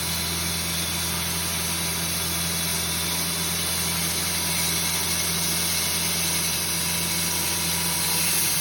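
Engine running at a steady speed: a constant low hum with an even hiss over it, with no change in pitch or load.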